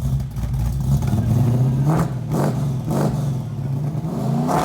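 Car engine running at a loud idle and revved in several short blips, its pitch rising and falling back each time.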